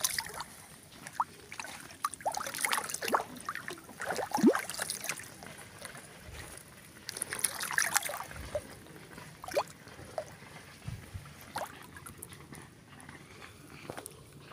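Swamp water sloshing and splashing in irregular bursts as someone wades through it.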